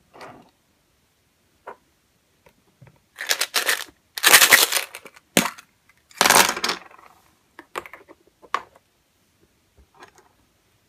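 Plastic surprise egg pulled apart and small candy-coated chocolates rattling and clattering out onto the table in several bursts, followed by a few single clicks as candies are pushed around.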